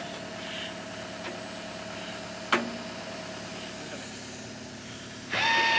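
Excavator diesel engine running steadily, with one sharp knock about two and a half seconds in. Near the end a loud, steady high-pitched whine cuts in suddenly.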